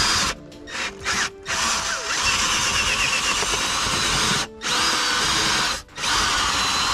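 Cordless drill boring a test hole through a house's exterior wall with a long, thin bit, run in bursts: two quick trigger pulls, then a steady run of about three seconds, and two shorter runs with brief pauses between them near the end.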